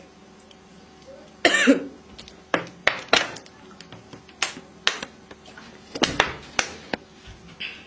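Irregular sharp knocks and clicks, about a dozen, from objects being handled. The loudest comes about one and a half seconds in.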